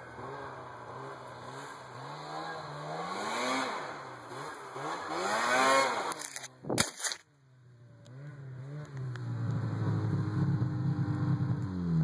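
Two-stroke snowmobile engine of a 2009 Ski-Doo 500SS, heard through a Dynoport big-volume aftermarket exhaust can, revving up and down again and again. About six and a half seconds in there is a sharp loud crack, and the sound nearly drops out for a moment. The engine then comes back louder and held at higher revs, falling in pitch at the very end.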